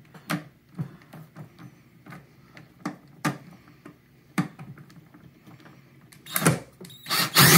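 Cordless drill-driver backing screws out of a plastic pump housing: a few scattered light clicks and knocks, then two short runs of the drill near the end, the second longer and louder.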